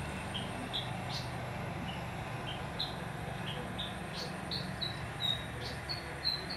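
A series of short high chirps, about two a second, stepping slowly higher in pitch and louder toward the end, over a low steady hum.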